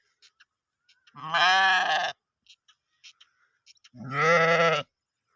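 Sheep bleating: two long, wavering baas about two and a half seconds apart, with faint short high ticks between them.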